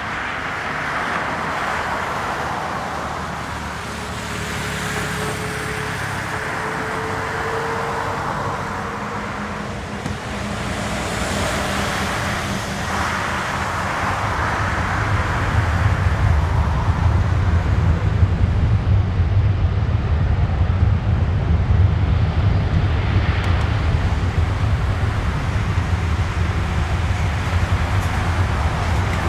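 Rolls-Royce Trent jet engines of a Boeing 777-200ER running: a steady rush with a faint rising whine early on, then a deep rumble that swells and grows louder from about halfway through.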